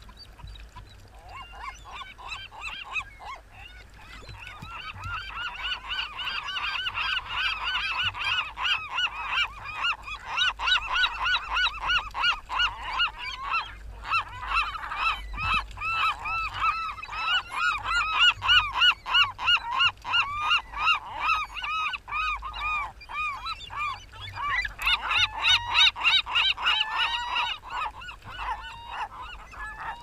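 A flock of gulls calling, rapid repeated arched cries overlapping one another. They build up a few seconds in and thin out near the end, with splashing and flapping in shallow water between the calls.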